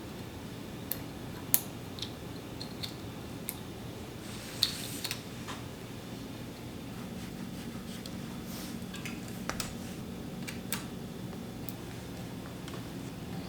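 Scattered light clicks and metallic taps of tools and bicycle parts being handled during a bike build, over a steady low hum. The sharpest clicks come about a second and a half in and again just before five seconds.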